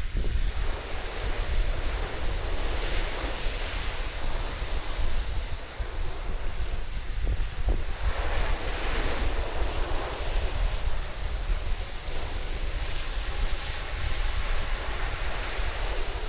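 Surf washing onto a sandy beach, swelling every few seconds as waves come in, with strong wind buffeting the microphone in a constant low rumble.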